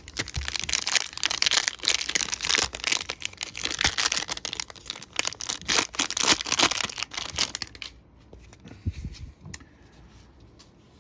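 A trading card pack's foil wrapper being torn open and crinkled for about eight seconds, then a few light clicks as the cards are handled.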